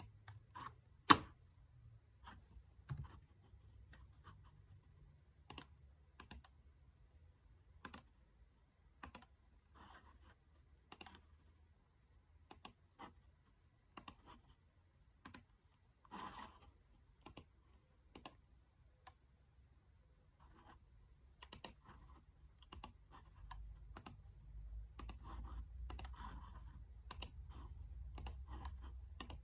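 Scattered single clicks of a computer mouse and laptop keys, one every half second to a second, with one louder click about a second in. A low hum rises in the last few seconds.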